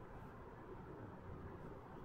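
Quiet interior of a Kyoto Municipal Subway 20 series car standing at a station, with only a faint low rumble of the train's equipment.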